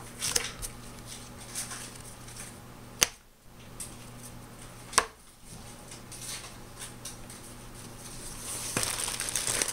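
Trading cards handled and set down on a playmat: soft rustling with two sharp taps about two seconds apart. The rustling grows louder near the end as hands reach into a fabric bag.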